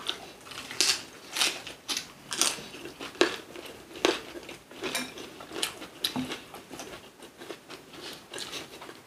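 Chewing and biting into a raw yellowtail wrap in a fresh napa cabbage leaf, with irregular crisp crunches about one or two a second.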